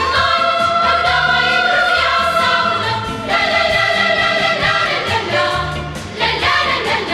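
Music: a choir singing long held notes over an instrumental accompaniment with a bass line.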